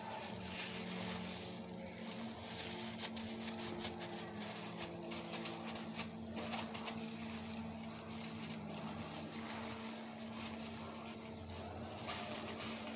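A plastic spoon and a plastic-gloved hand pressing and scraping soft biscuit dough against a steel bowl, with short scrapes and rustles, busiest in the middle. Under it runs a steady low hum.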